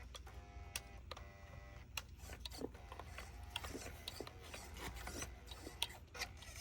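Small brushless motor of a 1/24 RC crawler giving a faint stuttering whine in short bursts for the first two seconds, then light scattered clicks. It is a sign of its 30 amp brushless ESC failing to drive it properly.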